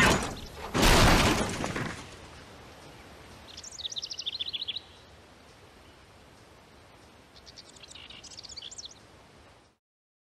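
A car crashing and tumbling down a hillside, one loud crash about a second in that fades over the next second. Then quiet outdoor air with a bird chirping in two short rapid bouts, and the sound cuts off near the end.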